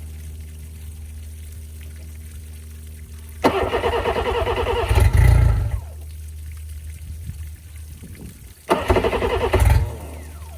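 2005 Johnson 60 hp EFI outboard cranked twice on its electric starter, first for about two and a half seconds, then for about a second and a half, without catching. Each attempt ends in a heavy thud. The weak battery, sagging to about 10.7 volts, keeps the engine from starting.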